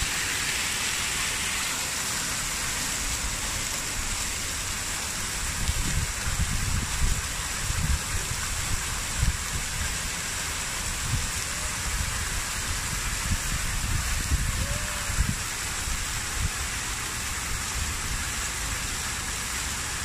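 Plaza fountain's many vertical water jets splashing steadily back into their stone basins, a constant even hiss. Uneven low rumbles come and go through the middle stretch.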